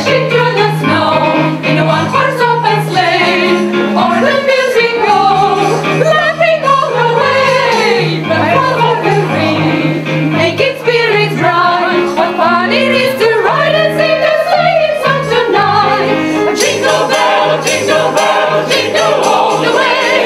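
A group of men and women singing a song together in chorus, over a steady low bass line.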